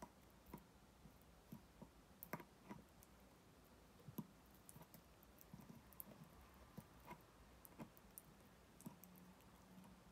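Faint, irregular clicks and taps, one or two a second, from a Bichon Frise puppy nosing at a wooden drawer and stepping about on a hardwood floor.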